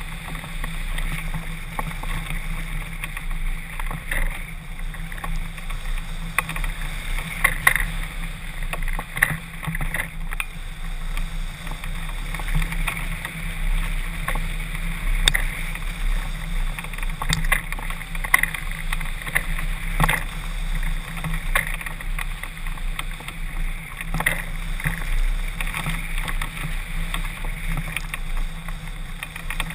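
Steady wind rush buffeting a camera mounted on a hang glider's wing in flight, with irregular sharp clicks and rattles scattered through it.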